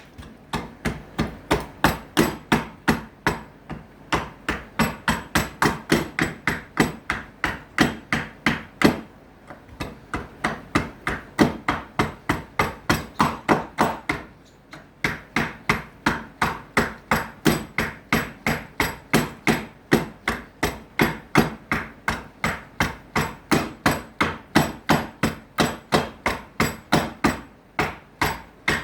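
Rapid, steady blows of a hand tool striking wood, about three a second, with two brief pauses about a third of the way in and about halfway through.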